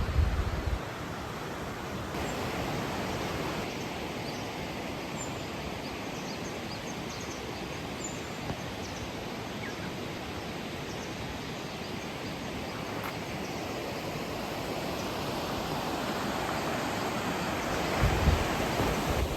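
Steady rushing noise of rain and running water at a campsite, an even hiss throughout, with brief low thumps at the start and about eighteen seconds in.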